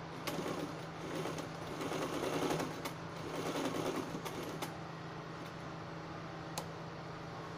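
Electric domestic sewing machine stitching in two short runs over the first four or five seconds, then stopping. A single sharp click comes near the end.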